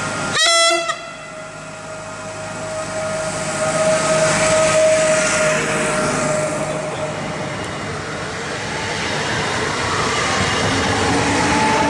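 Electric multiple unit passenger train giving a short horn blast about half a second in, then running close past. A steady motor whine rides over the rushing of wheels on the rails, which swells and eases and swells again.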